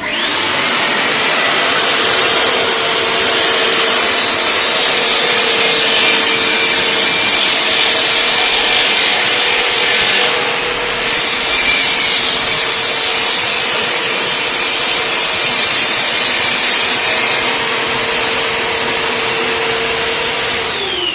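Cyclone vacuum cleaner switched on, its motor whine rising quickly to a steady pitch over a loud rush of air. The sound dips briefly about halfway. Near the end it is switched off and the whine falls as the motor spins down.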